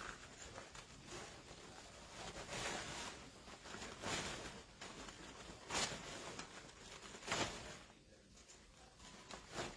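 Starched cotton fabric strips and wired ribbon rustling as they are handled and pulled down on a ragbow, with a few sharper swishes, the loudest past the middle of the stretch.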